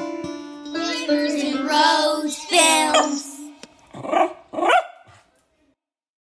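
A dog barks and howls in a run of wavering calls over a held musical note, ending the plucked string music, then gives two short barks.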